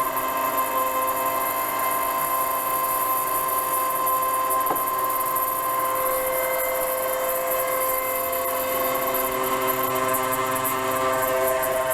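6040 CNC router spindle with a 6 mm two-flute end mill milling 12 mm aluminium plate: a steady whine of several held tones over a high hiss, its tones shifting about halfway through as the cut moves.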